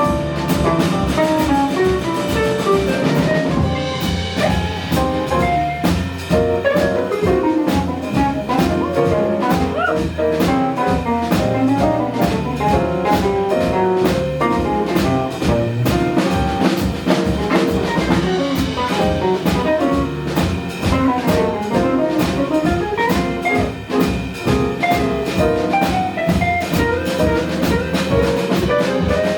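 Live jazz ensemble playing: saxophone over guitar, piano, bass and drum kit. A busy, wandering melodic line runs over the rhythm section, with regular cymbal strokes throughout.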